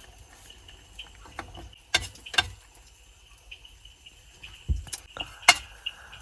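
Occasional clicks and knocks of cooking utensils against a pan, over a faint high, pulsing chirp.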